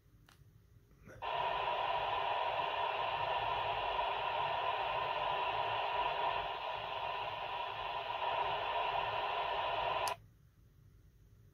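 Icom IC-2300H 2-metre FM mobile transceiver's speaker hissing with receiver static. The hiss switches on abruptly about a second in, runs steadily, and cuts off sharply with a click near the end.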